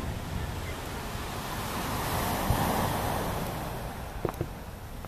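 A wave breaking and washing up the sand, swelling and fading over about two seconds, with sharp firework bangs: one at the very start and two close together about four seconds in.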